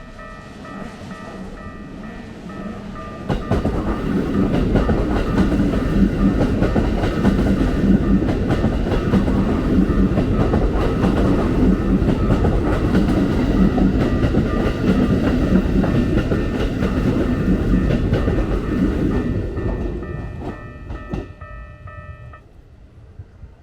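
A Keikyu train passing over a level crossing, its wheels clattering on the rails for about fifteen seconds. The crossing's warning bell rings with steady tones and stops near the end, after the train has gone.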